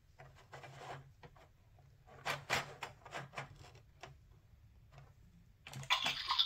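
Plastic gear wheels on a toy sound book being turned by hand, giving a scatter of light clicks and rubbing strokes, the louder ones about two to three and a half seconds in. Near the end a much louder hissing sound starts.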